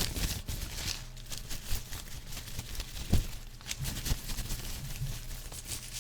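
Cloth bandana headband being fluttered and rustled, an irregular papery swishing with small clicks and one sharper bump about three seconds in.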